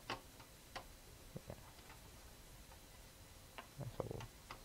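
Quiet, irregular clicks of small metal parts and a screwdriver being worked on a monitor's metal frame and circuit board while screws are taken out, a few at first and a quick cluster of clicks and light knocks near the end.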